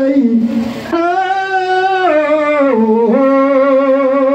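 A voice singing through loudspeakers, holding long drawn-out notes with a wavering vibrato. Each note lasts about a second and steps down in pitch, with a short break about half a second in.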